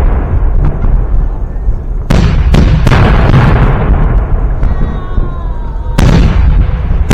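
Fireworks salute: sharp booming shell bursts, three in quick succession about two seconds in and another at about six seconds, over a continuous low rumble of echoing explosions.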